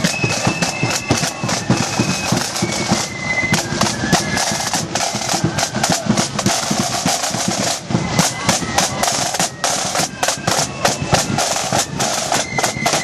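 Marching flute band playing: a rank of snare drums beating rapid strokes and rolls, with the flutes' tune held above them.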